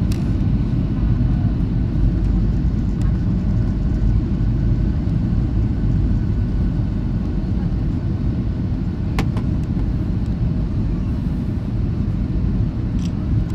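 Boeing 737-800 cabin noise on the landing approach with flaps down: a steady, loud low rumble of the CFM56 engines and airflow, with a faint steady whine above it. A single sharp click about nine seconds in.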